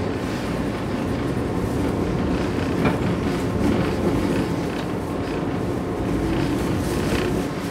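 Inside a 113 series electric train running on the line: a steady low rumble of wheels and motors, with a sharp rail-joint clack about three seconds in, as the train comes into a station.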